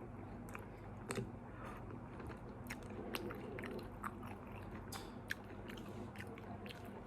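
People chewing and biting McDonald's fast food (fries, nuggets, burger), with many small irregular mouth clicks and crunches, over a faint steady low hum.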